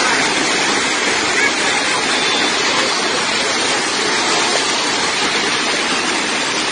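Heavy rain and hail pouring down, a loud, steady, dense hiss.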